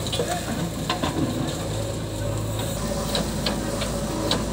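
JCB 3DX backhoe loader digging rocky soil: the bucket scrapes through earth and stones, which click and knock several times over the steady running of a diesel engine.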